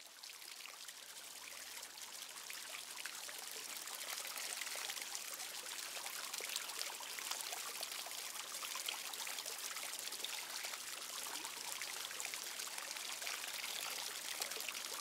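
Water fizzing with many fine gas bubbles, a faint, steady crackling hiss that swells over the first few seconds. These are the hydrogen and oxygen bubbles given off by a small solar-powered electrolyser and rising through the water of its glass storage cylinders.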